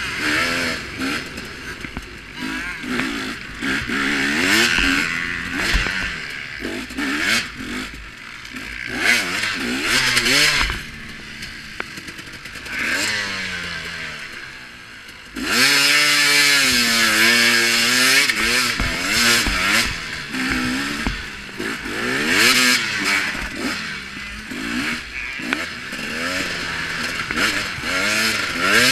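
KTM 250 XC two-stroke dirt bike engine being ridden hard, its pitch rising and falling over and over as the throttle is worked. The engine eases off and quietens shortly before the middle, then pulls at high revs for a few seconds, with scattered knocks and rattles from the bike over the bumps.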